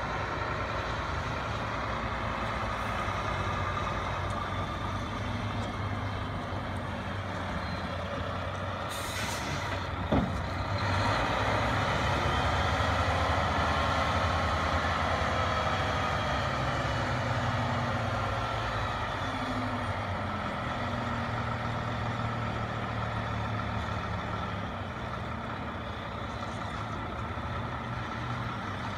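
Diesel engine of a semi tractor-trailer running steadily as the truck backs the trailer in. There is a short air-brake hiss about nine seconds in, then a click, and after that the engine runs louder for several seconds.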